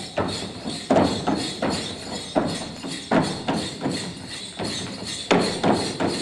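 Folk dancers' feet stamping and stepping on a stage in an uneven rhythm, a dozen or so sharp thuds with no singing over them.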